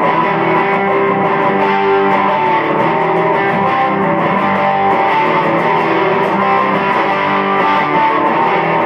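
Electric guitar played through a Marshall Studio 15 amp with no effects, playing a steady instrumental song intro.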